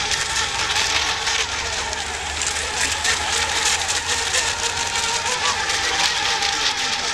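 Several electric radio-controlled racing boats running at speed on the water, their motors and propellers giving a steady high whine that wavers slightly as they pass.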